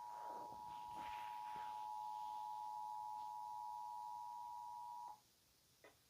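Emergency Alert System attention signal: the steady two-tone alarm of 853 Hz and 960 Hz sounded together. It cuts off abruptly about five seconds in, followed by a brief click near the end.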